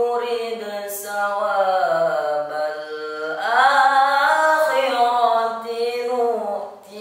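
A teenage boy's solo voice reciting the Quran in the melodic tilawah style, in long, wavering sustained phrases. About halfway through his voice climbs to a higher, louder passage, then falls back, with a short pause for breath near the end.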